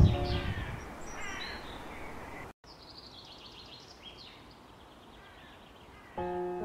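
Birds chirping in quick runs of high, short calls. The sound cuts out for a moment about two and a half seconds in, and soft piano music starts near the end.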